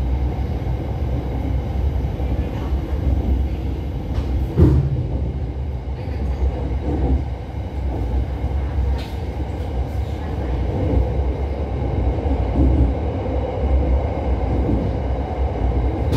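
SRT Red Line electric commuter train running, heard from inside the carriage: a steady low rumble, with a single sharp knock about four and a half seconds in.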